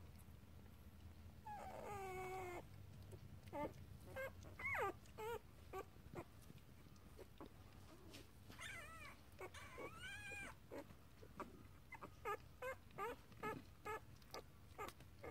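Sleeping puppy whimpering and yipping in its sleep. A long falling whine comes about two seconds in, then a string of short high yips and whines, with a few longer whines near the middle and a quick run of short yips toward the end.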